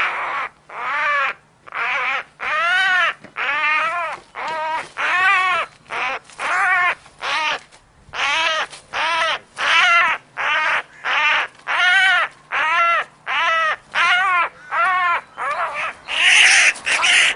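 Hooded crow cawing over and over, about one and a half harsh caws a second, each rising and then falling in pitch: distress calls of a crow pinned to the ground by a sparrowhawk. Near the end a couple of caws come louder and rougher.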